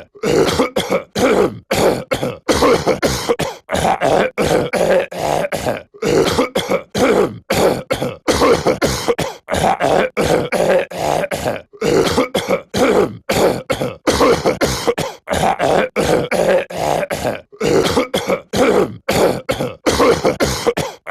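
A character's voice coughing and clearing his throat over and over, a short looped clip repeated in quick bursts about two or three a second.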